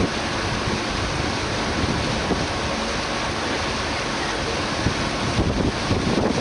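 Water rushing and splashing in the wake along the side of a moving motor boat, with wind buffeting the microphone and the boat's engine running underneath. Steady throughout, a little louder near the end.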